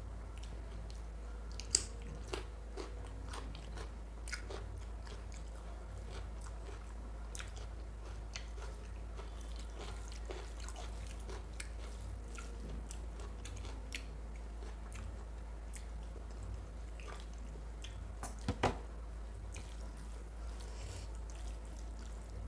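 A person chewing and biting mutton curry and rice close to the microphone, with many small scattered mouth clicks. Louder clicks come about two seconds in and again near eighteen seconds. A steady low hum runs underneath.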